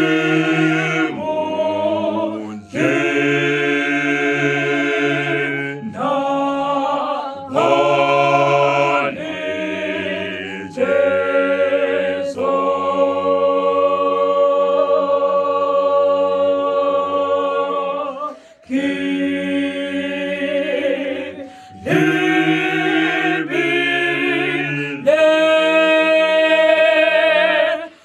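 A gospel vocal group singing a cappella in several-part harmony, in phrases broken by short breaths, with one long held chord in the middle.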